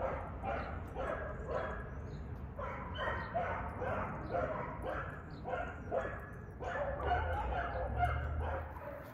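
Dog barking over and over, about two barks a second, with no let-up.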